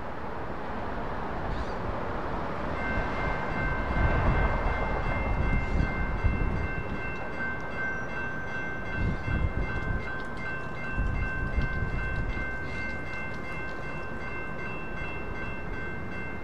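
Railroad crossing warning bells start ringing about three seconds in as the signals activate. They keep up a steady, fast-repeating ring of high tones while the gates lower. Passing road traffic swells low underneath twice.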